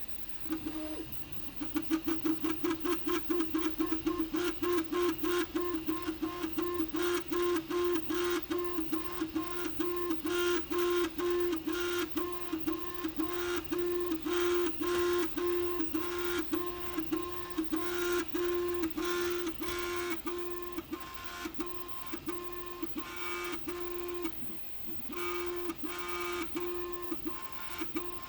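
Prusa i3 MK3S+ 3D printer running, its stepper motors giving a loud whine at one steady pitch that breaks off and restarts several times a second. It starts about half a second in and pauses briefly near the end; the owner finds the noise unusually loud.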